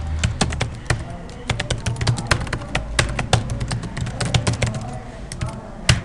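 Typing on a computer keyboard: a quick, irregular run of key clicks, over a low steady hum.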